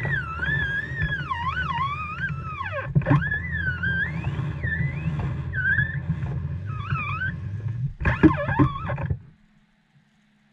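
SeaStar hydraulic steering helm pump whining as the wheel is turned by hand while the system is topped off with oil. The whine glides up and down in pitch with the wheel's speed and stops abruptly about nine seconds in.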